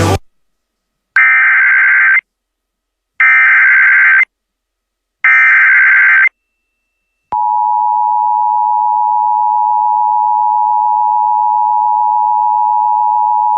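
Emergency Alert System header for a flash flood warning. It opens with three one-second bursts of SAME digital data tones, a harsh warbling screech, about a second apart. After a click, the steady EAS attention tone starts about seven seconds in and holds.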